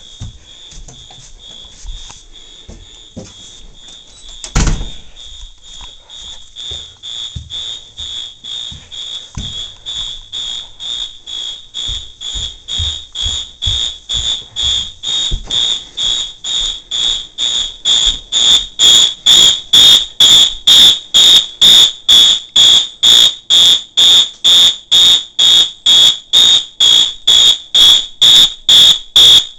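Fire alarm horn sounding in march time: a high-pitched tone pulsing about twice a second, growing from faint to very loud, loudest from about two-thirds of the way in. A single loud thump about four and a half seconds in.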